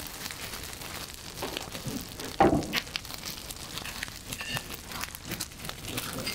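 Aluminium foil and paper crinkling and tearing as a foil-wrapped, slow-cooked cut of meat is unwrapped by hand, in irregular rustles with one louder one about two and a half seconds in.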